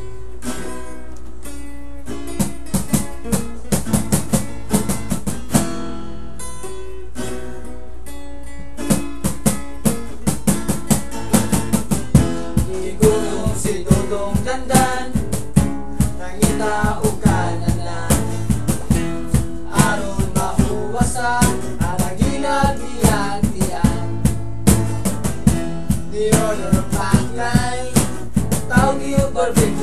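A band song with guitar and drum kit. Sustained guitar chords open it, and regular drum beats come in about nine seconds in.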